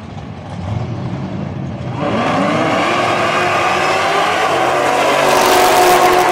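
Two drag-racing cars, a supercharged Dodge and a Camaro, idling on the line and then launching at full throttle about two seconds in. The engines climb in pitch as they accelerate down the strip and grow louder near the end.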